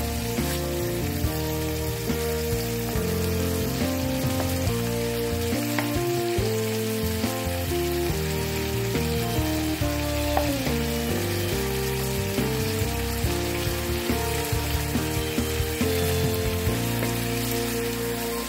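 Chicken pieces sizzling in hot oil in a frying pan, with scattered light scrapes and taps as a wooden spoon stirs them. Background music with stepping notes plays underneath.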